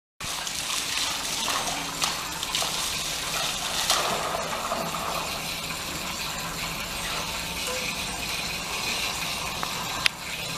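Water from a hose running and splashing over a dog's wet coat and onto a tiled floor, a steady hiss. A sharp click near the end.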